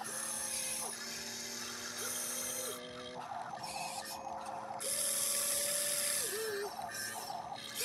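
Huina radio-controlled excavator's electric motors whining as the boom, arm and bucket move, starting and stopping in short runs, with the pitch sliding up and down as each movement begins and ends. Louder from about five seconds in.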